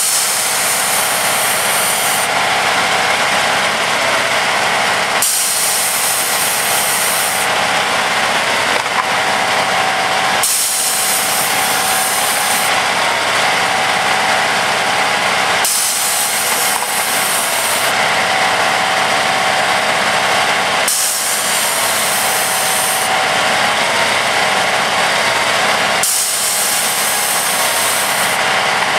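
Railway track tamper machine running steadily, its engine and hydraulics giving a constant mechanical noise with a steady whine. A high hiss cuts in for about two seconds roughly every five seconds.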